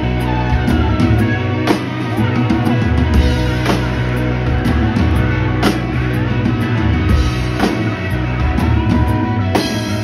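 Live rock band playing loud electric guitars over a drum kit, with a sharp accent about every two seconds and notes bending in pitch.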